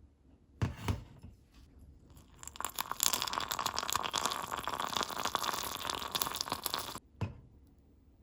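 Two light knocks, then about four seconds of dense crinkling and rustling that stops suddenly, followed by two more light knocks.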